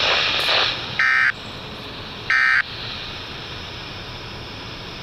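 Emergency alert SAME data tones, the short end-of-message code: the tail of one burst at the very start, then two more brief warbling bursts about 1.3 seconds apart, each about a third of a second long. Steady radio hiss continues after them.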